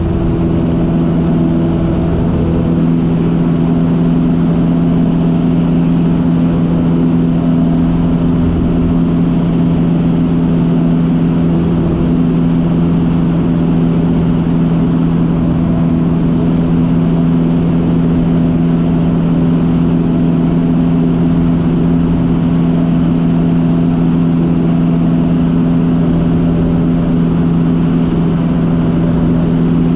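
Cessna 150's Continental O-200 four-cylinder engine and propeller droning steadily in flight, heard from inside the small cockpit.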